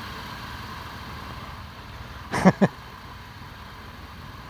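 An engine idling steadily, with two sharp knocks in quick succession a little past halfway.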